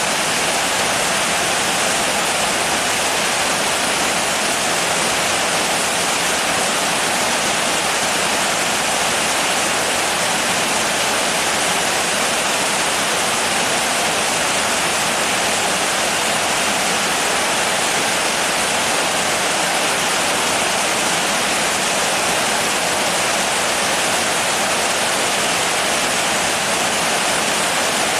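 Steady, dense rainfall: an even hiss of heavy rain that does not change.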